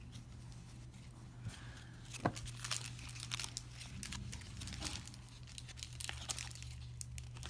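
Soft, irregular rustling and clicking of a stack of 1998 Fleer baseball cards being handled and flipped through in the hand, with light crinkling.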